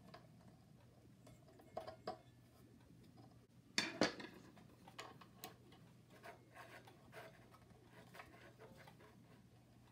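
Small metal clicks and knocks of hand work on an air compressor's grooved belt pulley, a screwdriver working the drive belt onto it and the pulley turned by hand. Two sharp clacks about four seconds in are the loudest, with lighter scattered ticks after.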